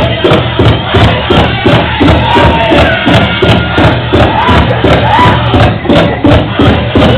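Pow-wow drum music: a big drum struck in a steady, even beat, about three beats a second, with voices singing over it.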